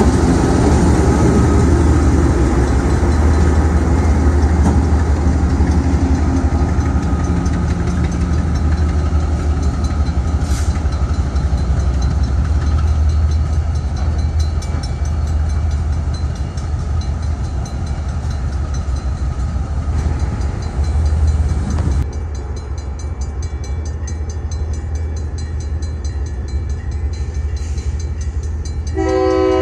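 Providence and Worcester six-axle diesel locomotives running as they pull away, a deep engine rumble slowly fading and dropping abruptly about three-quarters of the way through. In the last second the locomotive's air horn begins to blow.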